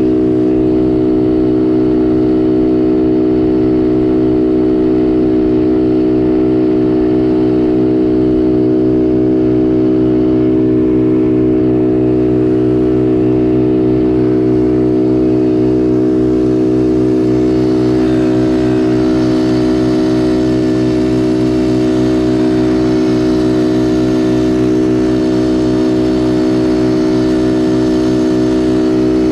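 Small 50cc youth quad's engine running at one steady, unchanging pitch, heard up close from on board the racing quad.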